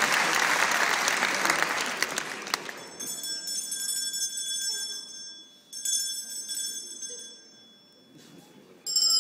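Audience applause dying away over the first few seconds. It is followed by high, thin bell-like ringing that sounds three times, with short pauses between.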